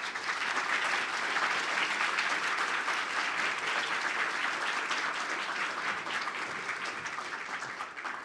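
Audience applauding, steady and then tapering off near the end.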